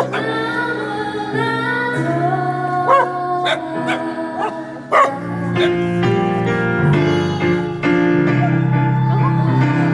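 A live song on keyboard and voice, with a dog howling along several times in short rising-and-falling howls.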